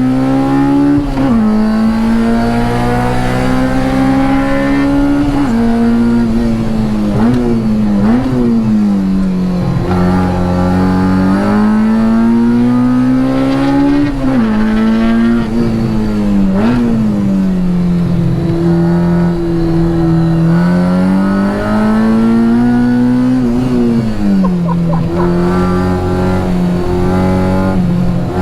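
Honda K20 four-cylinder engine in a DC2 Integra Type R being driven hard on track, heard from inside the car. Its pitch climbs under acceleration and falls repeatedly, with sudden drops at gear changes and quick dips and rises between them.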